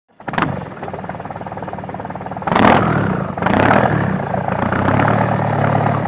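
An engine starting suddenly and running, revved up about two and a half seconds in and again a second later.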